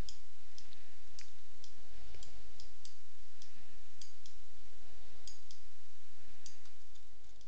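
Computer mouse clicking irregularly, about two clicks a second, over a steady low hiss, while vertices are picked and dragged in a 3D modelling program. The sound begins to fade out near the end.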